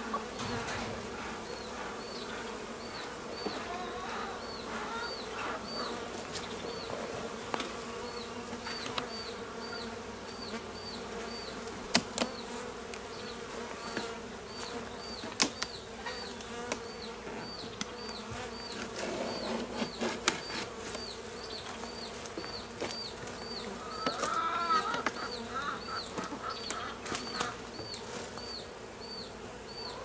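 Honey bees buzzing in a steady drone around an opened hive, with a few sharp clicks, the loudest about twelve and fifteen seconds in.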